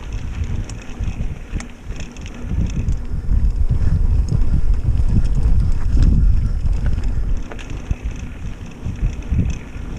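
Wind buffeting an action camera's microphone as a mountain bike rolls along a dirt trail, with low tyre rumble and a few light rattles. The buffeting swells loudest through the middle and eases toward the end.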